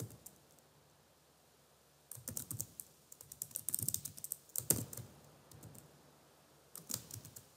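Typing on a computer keyboard: a run of quick key clicks starting about two seconds in, with a few more keystrokes near the end.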